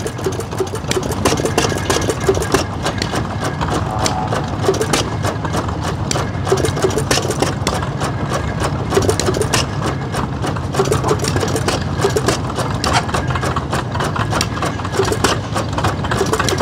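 Antique stationary engine running steadily and driving a pump, with a fast, even clatter of knocks over a low hum.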